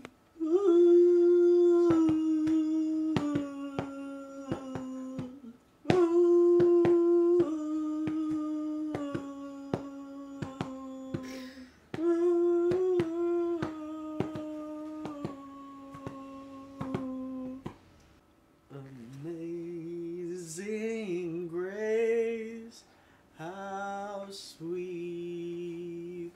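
A voice humming the same slow, step-by-step falling tune three times, with sharp clicks like finger snaps through it. In the last third it drops into a lower, wavering sung chant.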